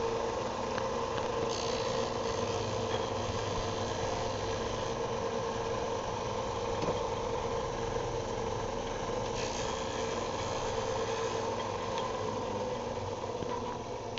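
Bench-top sander running steadily as the cut end of a 1/2-inch PVC pipe is sanded square and flat. A harsher hiss comes in for a couple of stretches.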